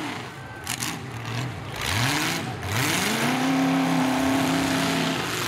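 Demolition derby stock trucks' engines, running through exhaust pipes that stick straight up through the hood. They rev up in two rising climbs about two seconds in, then hold a steady high pitch.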